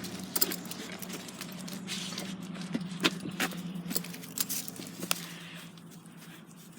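A dog's collar tags and leash hardware jingling and clicking at irregular moments while it walks. Under them runs a low steady hum that fades in the last couple of seconds.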